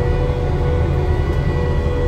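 Cat excavator's diesel engine running, a steady low drone with a high hydraulic whine held over it.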